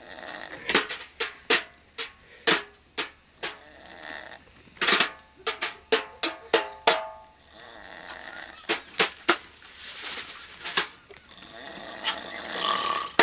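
Snare drum played with wire brushes, sharp strokes and swishes in a loose rhythm, trading back and forth with a sleeping man's loud, rasping snores.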